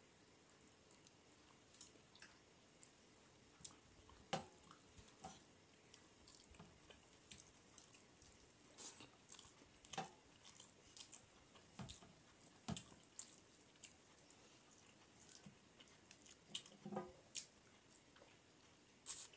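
Faint, wet eating sounds: scattered smacks and squishes of chewing rice and fish curry, with soft clicks as fingers mix rice and curry on a brass plate.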